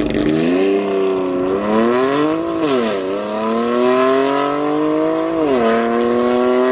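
BMW F30 330d's straight-six turbodiesel, with a stage 2 tune and a catless downpipe, accelerating hard. The engine note climbs steadily and drops twice, a little under three seconds in and again about five and a half seconds in, as the automatic gearbox upshifts.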